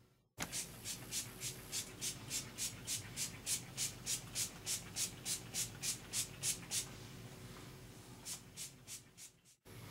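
Quick, even scratching or rubbing strokes, about three a second for several seconds, then a pause and four more near the end.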